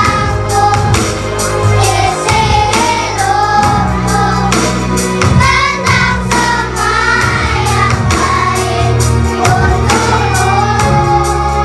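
A group of children singing a song together over instrumental backing with a steady bass line.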